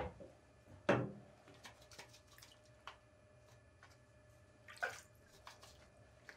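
Water dripping into a sharpening tub, with a few sharp clicks and knocks from a small plastic jar being opened and handled, the loudest about a second in and again near the five-second mark.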